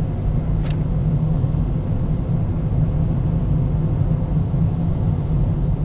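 A steady low rumble with an even hiss over it, and one short click about two-thirds of a second in.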